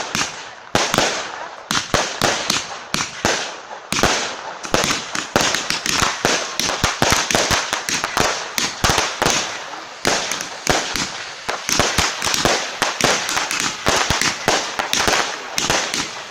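Fireworks batteries (multi-shot cakes) firing: a dense, unbroken string of sharp bangs, several a second, with crackle between them.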